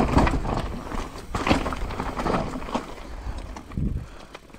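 Downhill mountain bike riding a dirt trail: tyres rolling over the ground, and the bike rattling and clattering over bumps in irregular knocks, easing off near the end.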